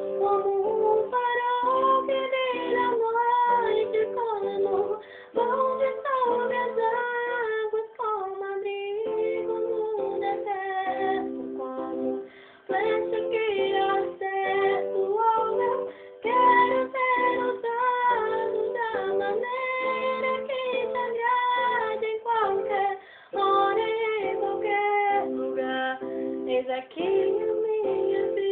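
A girl singing a Portuguese gospel worship song, her melody rising and falling in long held notes, over a steady instrumental backing track.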